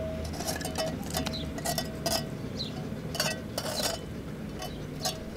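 Pebbles and shingle clinking in scattered small clicks and knocks, with a faint steady tone coming and going.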